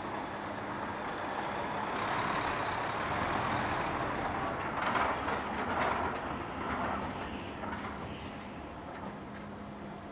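Large harvest machinery engine running steadily, growing louder for a few seconds in the middle and then easing off.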